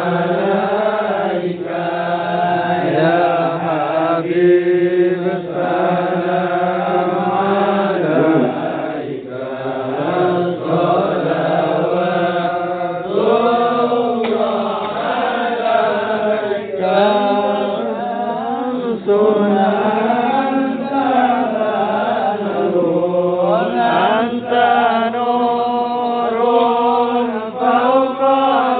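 A group of men chanting sholawat, Islamic devotional praise of the Prophet, together in unison, the melody rising and falling without a break.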